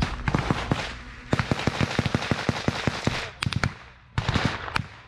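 Close-range rifle gunfire: quick bursts of automatic fire, several shots a second, with a few sharp single cracks a little past three seconds in and another burst near the end, then the sound cuts off suddenly.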